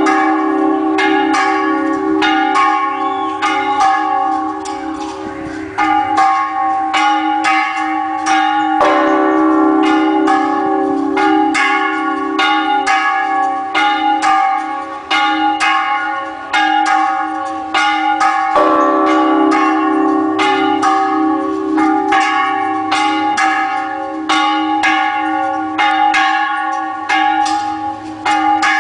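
Church bells pealing a repique, the rapid festive ringing of several bells that calls to mass. Quick strikes come several times a second over the steady ringing of the larger bells, whose deeper tones swell afresh about nine and again about eighteen seconds in.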